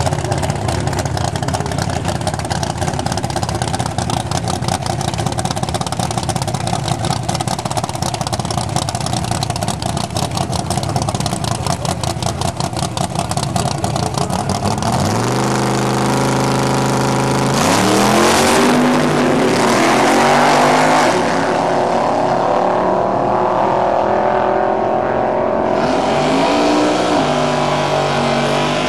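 Car engine idling with a fast, even pulse, then about halfway through revving up and accelerating, its pitch climbing and dropping back several times as it goes through the gears.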